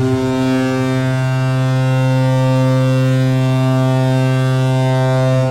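Colorado Avalanche arena goal horn: one long, deep, steady blast that slides up into pitch as it starts.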